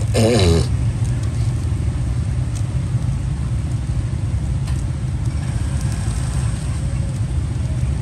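Steady low rumble of road traffic. A brief sound falling in pitch comes right at the start.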